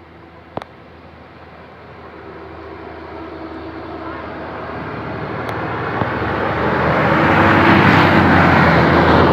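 A bus approaching: engine and road noise grow steadily louder over several seconds. A steady hum comes in over the second half.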